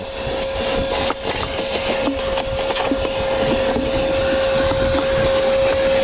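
Vacuum mode of a HIKO Multi Archer 4-in-1 pressure washer, a universal (brushed) motor unit, running with a steady whine as its crevice nozzle sucks dust and cigarette ash off car floor carpet. Scattered ticks come from coarse grit being drawn up the hose.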